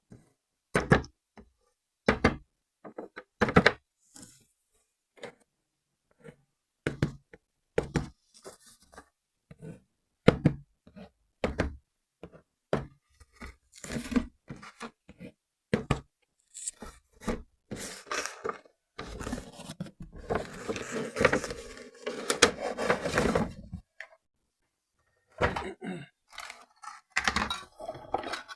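Hard plastic toy and packaging being handled: irregular knocks and clicks, with a denser few seconds of rustling and scraping about two-thirds of the way through.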